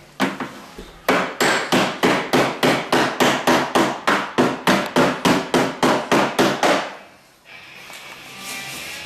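Body hammer striking the steel door-skin hem flange against a hand-held dolly, folding the hem seam. There is one blow, then a steady run of about four sharp metallic blows a second that stops about seven seconds in.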